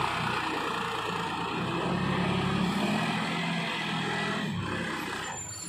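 John Deere tractor's diesel engine running under work, its note rising about two seconds in and dropping back near the end.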